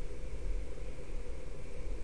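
Steady hiss over a low rumble, with no distinct event: the background noise of a house recording.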